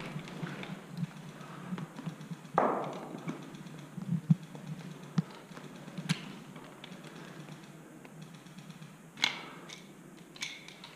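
Sporadic sharp clicks and knocks from an airsoft skirmish, each with a short echo off the brick corridor, about half a dozen spread out at irregular intervals.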